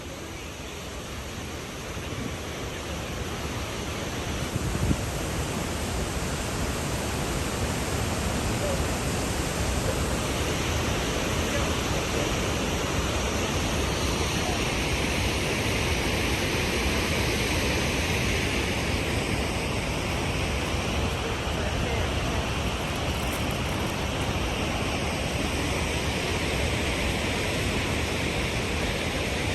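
Cane Creek Falls, a high waterfall running with plenty of water, giving a steady rush of falling water that grows louder over the first few seconds.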